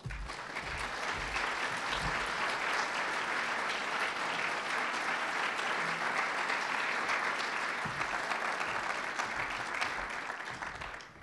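Audience applauding: a steady round of clapping that starts at once and dies away near the end.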